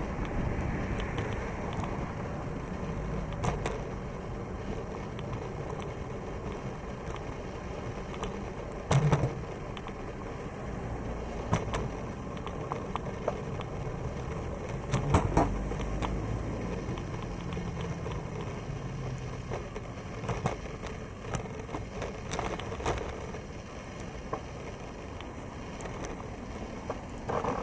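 Road traffic with a steady low rumble of riding and wind on the microphone, broken by scattered sharp knocks and rattles.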